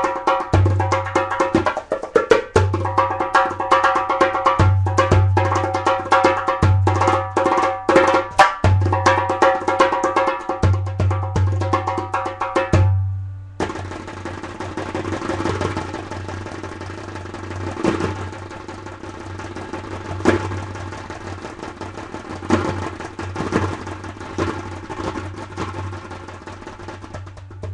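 Darbuka (goblet drum) played with the hands with a dry tone: a fast, dense run of loud strokes. About halfway through, the playing drops to quieter, softer rapid taps with an occasional stronger accented stroke.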